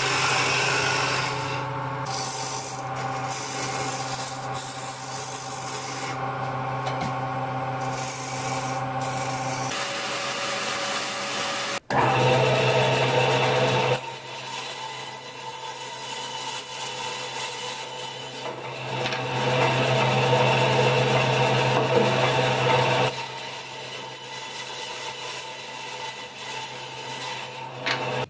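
A wood lathe running with a steady motor hum while a gouge cuts a spinning wooden blank, shaving off wood with a scraping, rasping sound. About twelve seconds in, the sound changes to a bandsaw running, its blade cutting through the turned blank in two louder passes with quieter running between.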